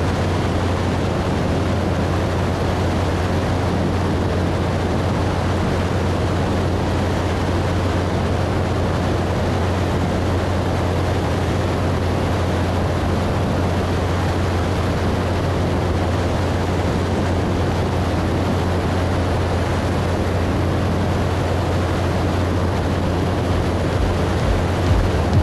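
Gyrocopter in steady cruise: the engine and pusher propeller drone evenly, a low hum under a constant rush of wind, as picked up by a camera mounted on the aircraft.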